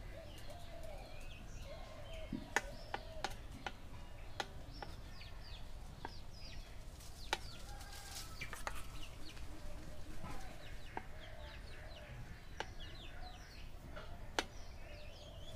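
Birds calling and clucking, with a few sharp clinks of a steel spoon against a steel plate as chocolate is spread over a cake.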